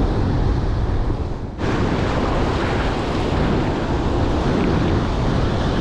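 Rough surf washing and breaking over rocky reef, with wind buffeting the microphone.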